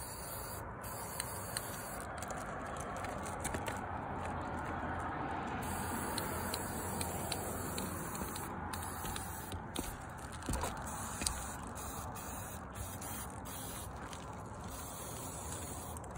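Aerosol spray-paint can hissing in a long, steady spray, with a few sharp clicks along the way.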